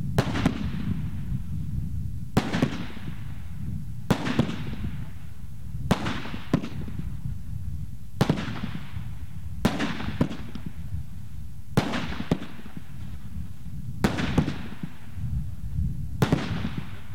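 Fireworks firing one shot after another, a shot about every two seconds, each a pair of sharp bangs about half a second apart, over a steady low rumble.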